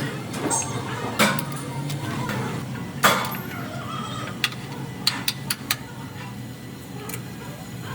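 A series of sharp knocks and clicks over a steady low hum. The loudest knock comes about three seconds in, and a quick run of four or five follows between about four and a half and six seconds.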